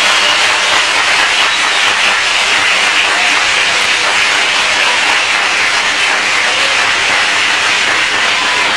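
Audience applauding, a dense, steady wash of clapping.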